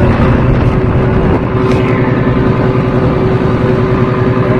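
Fishing boat's engine running steadily at a constant pitch.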